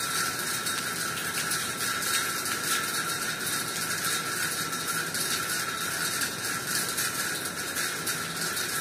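Steady rain falling on trees and a wet concrete balcony, an even hiss with many fine drop ticks and no break.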